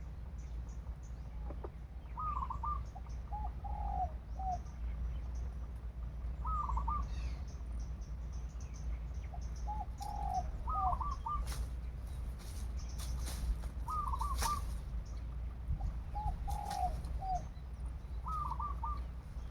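Doves cooing: short phrases of a few notes repeat every few seconds, two different calls alternating. A few brief rustles or wing-flaps come between about eleven and fifteen seconds in, over a steady low rumble.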